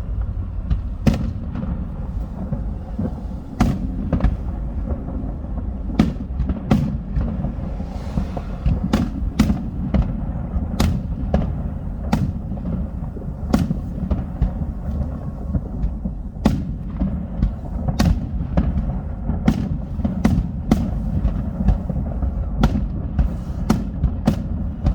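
Fireworks display: a constant low rumble of aerial bursts, broken by sharp cracks and bangs about once or twice a second.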